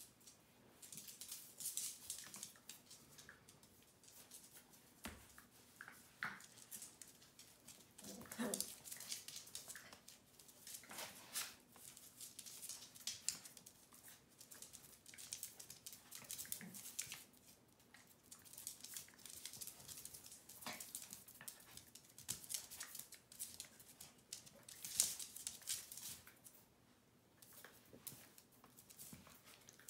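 Two small dogs play-fighting: their claws scrabble and skitter on a hard floor in quick irregular bursts, with a few short vocal sounds from the dogs.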